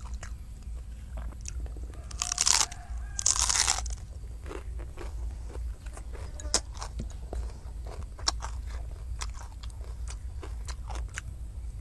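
A person chewing food close to a clip-on microphone: wet smacking and clicking mouth sounds, with two louder hissy rushes about two and three seconds in.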